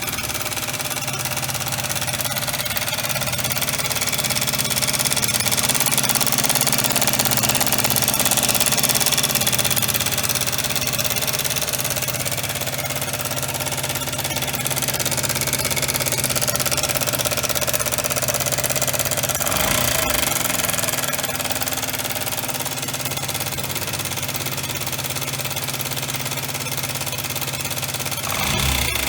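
Honda Dunk 50 scooter's 50cc engine running steadily with an abnormal noise in it, the fault being checked. It gets a little louder for several seconds in the first third, then settles.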